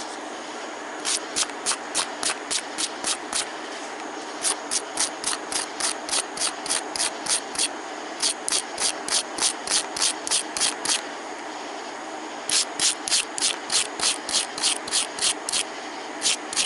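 Wire brush scrubbing a spark plug clean in quick back-and-forth strokes, about four or five a second, in four runs with short pauses between.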